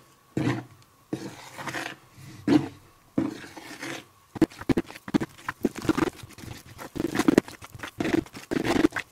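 Metal spoon stirring rye flour and lukewarm water in a bowl, mixing a sourdough starter: repeated scraping strokes through the thick, wet batter. The strokes come faster from about halfway through.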